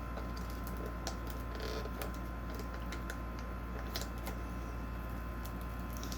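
Light, scattered clicks and taps of Pokémon trading cards and their packaging being handled, over a steady low hum.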